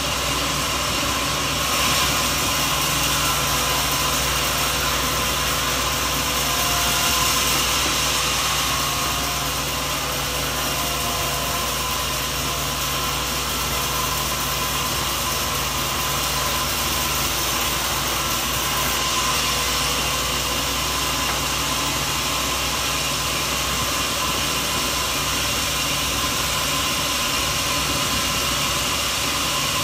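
Sawmill machinery running, a steady mechanical noise with a constant hum.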